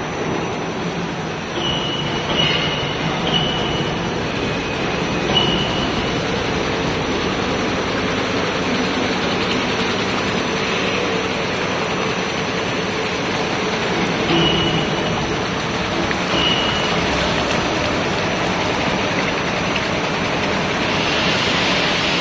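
Steady machinery noise from a copper cable recycling line's water-washing separator, with wash water running through the crushed wire. A handful of brief high squeaks come through in the first few seconds and twice more around the middle.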